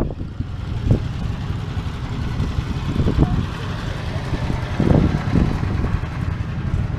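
A tractor engine running steadily, a low hum, with a few short louder sounds around three and five seconds in.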